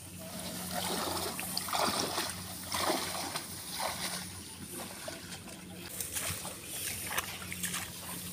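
Tall reeds and grass swishing and brushing close by, with footsteps on a wet, muddy path: a person pushing through dense reeds at the edge of a rice field.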